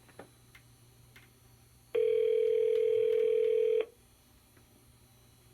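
Telephone ringback tone heard by the caller: one steady ring about two seconds long, the line ringing at the other end, with a few faint clicks on the line before it.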